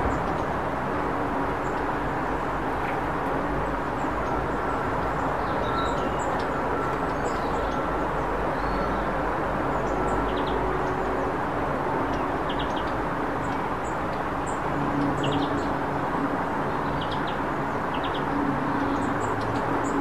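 Steady low rumble of outdoor background noise, with faint, short high chirps from small garden birds scattered through it. A low steady hum joins under the rumble in the last few seconds.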